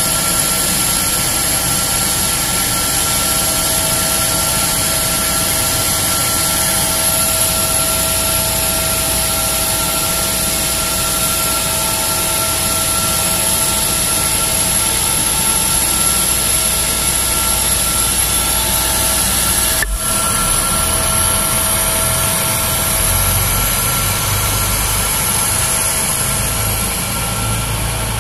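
Loud, steady jet turbine whine with several steady high tones. About two-thirds of the way through the sound changes suddenly and a low engine rumble joins it.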